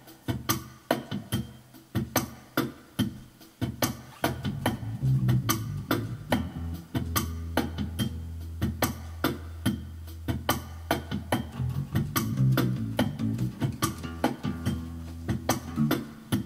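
Improvised instrumental music: a drum machine playing a steady beat under a short-scale Ibanez Mikro electric bass playing a bass line, with long held low notes from about four seconds in.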